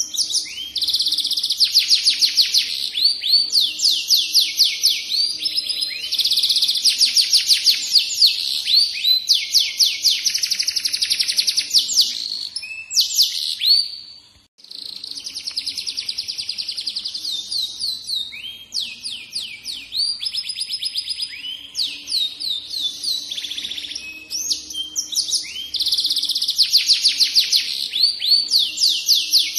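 Domestic canary singing a long, unbroken song of rapid trills and rolls of repeated high notes, with one short pause about halfway through.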